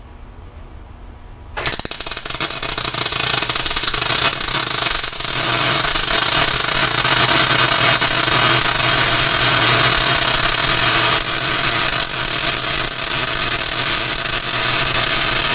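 HTP Mig 140 MIG welder striking an arc about a second and a half in, then a continuous crackling sizzle like bacon frying: a test weld with the freshly repaired gun and adapter block, which sounds pretty good.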